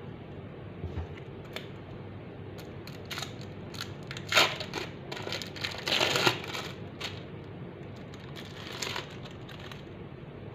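Plastic wrapper crinkling as it is peeled off a processed cheese slice by hand, in irregular short rustling bursts that are loudest around the middle, with a second brief flurry near the end.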